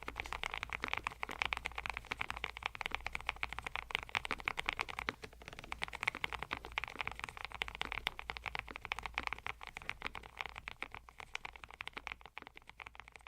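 Fast, continuous typing on the ATK YOGO75 PRO, a full-aluminium low-profile mechanical keyboard: a dense stream of key clicks that thins out a little near the end.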